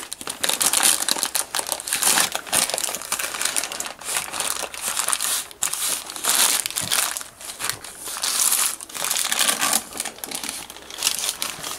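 Baking paper crinkling and rustling in uneven bursts as hands roll and press a bacon-wrapped meat roll tight inside it.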